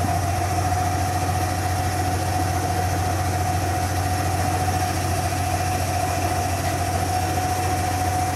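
Hardinge HLV-H toolroom lathe running with its electric power cross feed driving the cross slide: a steady motor hum with a constant whine above it.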